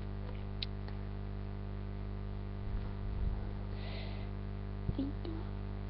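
Steady electrical mains hum, with a few faint handling clicks and rustles and a short soft hiss about four seconds in.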